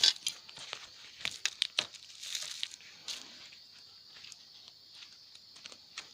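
Handling of salvaged 18650 lithium-ion cells and their plastic wrapping and tape: sharp clicks and crinkling rustles, busiest in the first three seconds, then a few quieter knocks.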